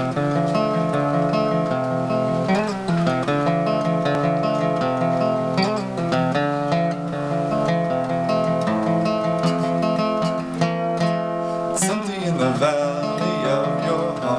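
Acoustic guitar strummed steadily through a song's instrumental intro, holding ringing chords that change every second or two.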